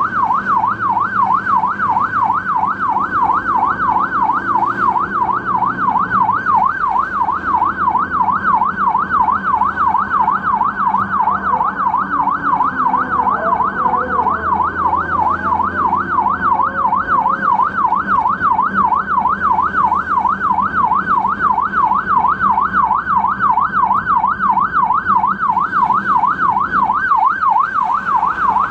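Ambulance siren in a fast yelp: a loud wail sweeping rapidly up and down several times a second without a break, over a low rumble.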